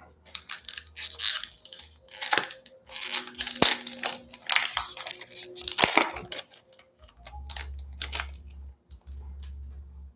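Foil Magic: The Gathering collector booster pack wrapper crinkling and tearing as it is opened by hand: a dense run of crackling rustles that thins out about eight seconds in.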